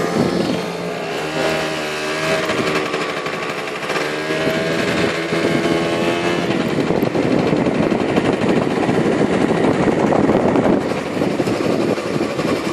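Motor-scooter engine running under way, its pitch wavering a little, with a dense rushing noise of wind and road taking over from about seven seconds in.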